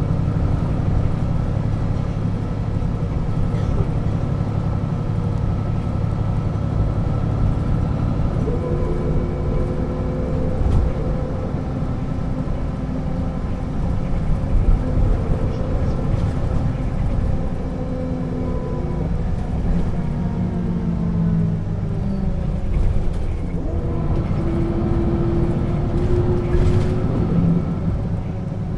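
1996 Setra S 315 UL bus under way, heard from on board: steady diesel engine rumble with a gearbox whine that rises as the bus speeds up about 8 seconds in, glides down as it slows around 20 seconds, and rises again near the end.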